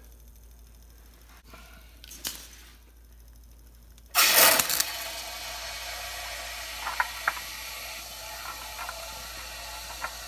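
A sudden loud crack and clatter about four seconds in, as the graphite crucible of molten aluminium breaks during the pour. A steady hiss follows, with a few light clicks.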